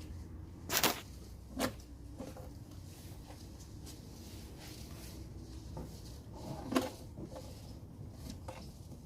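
Air-intake parts being worked into place by hand: plastic and rubber knocking and rubbing, with three louder knocks, two near the start and one a little past the middle.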